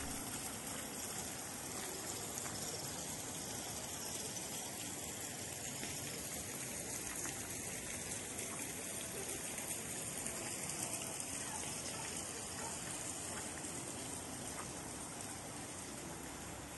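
Water from an artificial rock waterfall splashing into a garden pond: a steady rushing hiss that eases off slightly near the end.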